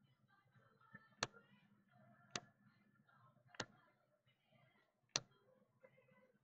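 Baseball trading cards being flipped through one at a time: four sharp clicks about a second apart as each card snaps onto the stack, over faint background murmur.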